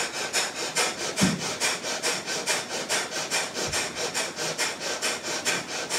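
A person doing breath of fire yoga breathing: rapid, forceful puffs of breath through the nose, about three a second in a steady rhythm.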